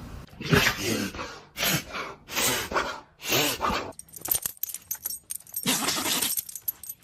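Dog sneezing about five times in quick succession, then rapid metallic jingling for the last three seconds.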